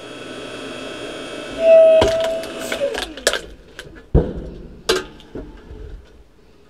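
Electric hydraulic log splitter (Harbor Freight 5-ton) running steadily as its ram drives a green log onto the wedge. Less than two seconds in, the log gives way with a loud squealing crack. After that the motor hum stops and the split pieces knock together several times as they are handled.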